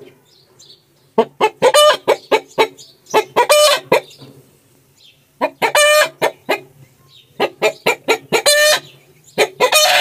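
Chickens cackling: four runs of short, quick clucks, each ending in a longer, louder note, starting about a second in.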